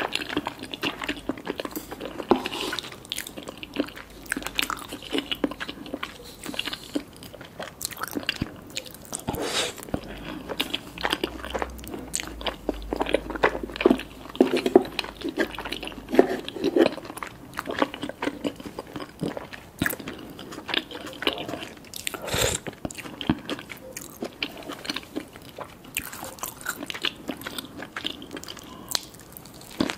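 A person biting and chewing food close to the microphone: an irregular run of crunchy bites and chewing clicks.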